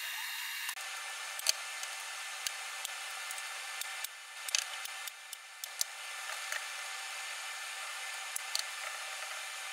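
Sharp snaps of a hand staple gun fastening screen mesh to a wooden frame, several of them at uneven intervals, over a steady background hiss.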